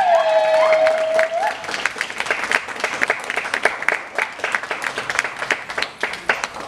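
Audience applause and clapping at the end of a live bellydance performance. A high held vocal note, following trilling cries, ends about a second and a half in.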